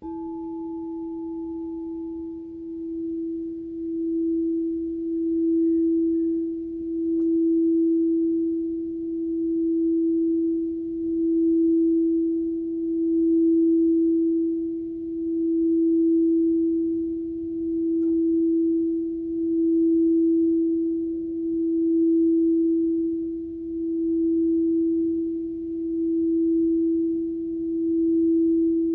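A single sustained pure tone, the sound-bath tone for the solar plexus chakra, swelling and fading in loudness about every two seconds. A fainter, higher ring dies away in the first couple of seconds.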